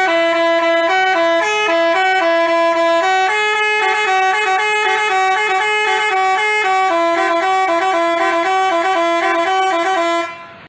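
Basuri telolet horn playing a loud, quick tune of short stepped notes, cutting off abruptly near the end.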